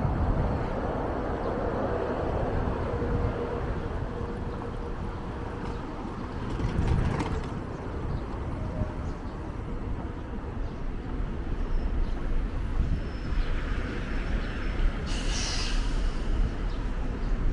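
City street traffic: a steady rumble of passing vehicles, with a faint steady whine over the first several seconds and a short hiss about fifteen seconds in.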